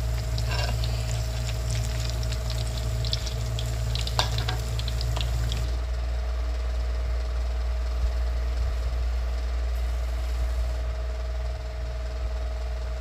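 Flour-battered tempe sizzling and crackling as it fries in hot oil. The crackling stops abruptly about six seconds in, leaving only a steady low hum.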